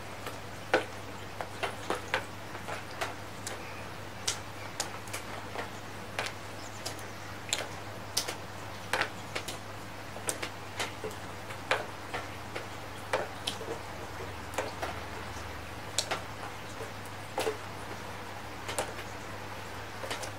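Raindrops tapping irregularly on hard surfaces close to the microphone, a couple of sharp ticks a second at uneven spacing, over a faint hiss of rain and a steady low hum.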